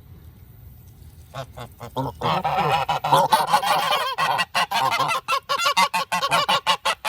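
Domestic geese honking: a few honks start about a second in, then build into a loud, dense chorus of rapid, overlapping honks. The birds are agitated, which the owner puts down to the noise of metalwork next door.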